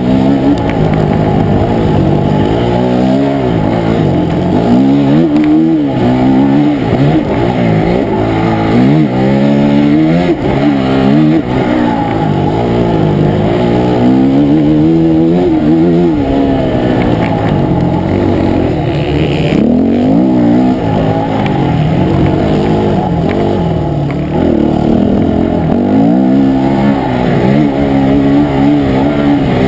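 Dirt bike engine at racing speed, heard up close from on the bike, its pitch rising and falling over and over as it accelerates and slows around a motocross track.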